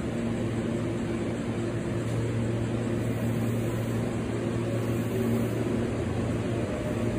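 Steady hum of a red Meitetsu electric commuter train standing at the platform, its onboard equipment running: a constant low drone with a few fainter steady tones above it.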